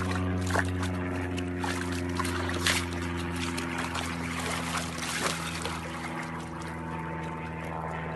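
Water splashing and sloshing in a plastic paddling pool as a pig moves about in it, with scattered splashes over a continuous watery wash. A steady low hum runs underneath.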